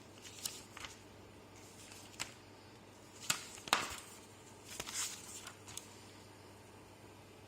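Scattered light clicks and knocks of computer hardware being handled, the loudest pair about three and a half seconds in, over a faint steady low hum.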